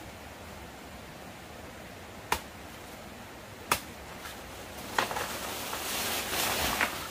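Three sharp knocks, spaced about a second and a half apart, then a rustling hiss for about two seconds with one more knock near the end.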